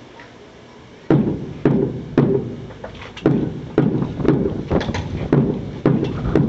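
A squad's boots stamping on concrete in unison during foot drill, a regular beat of about two steps a second that starts about a second in.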